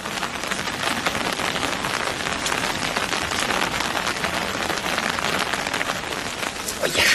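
Water running and splashing in a shallow, narrow canal around a net being handled: a steady, dense crackling patter.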